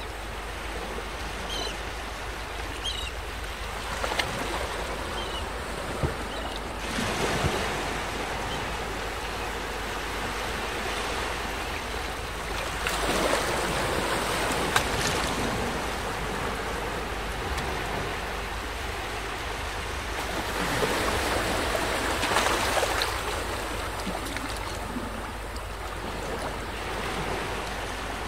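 Small waves breaking and washing up a sandy beach: a steady hiss of surf that swells three times, about every seven or eight seconds, as each wave runs up the sand.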